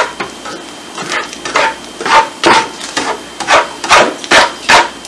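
Slotted spatula chopping and scraping scrambled eggs and sausage in a frying skillet, a string of sharp knocks about two a second that stops near the end.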